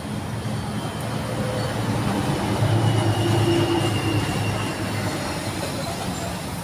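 A motor vehicle passing on the road: its low engine rumble swells to a peak about three seconds in and then fades, with a faint high whine over it.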